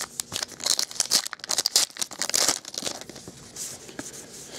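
Stack of football trading cards being flipped through by hand: quick card slaps and slides with crinkling, busiest over the first three seconds and then sparser.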